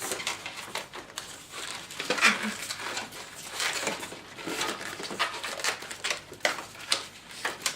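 Latex twisting balloons being handled, stretched and knotted: irregular squeaks and rubbing with small sharp clicks.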